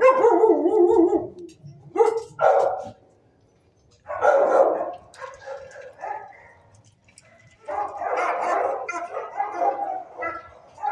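Shelter dogs barking in bouts: a loud burst right at the start, short bursts about two and four seconds in, and a longer run of barking over the last three seconds.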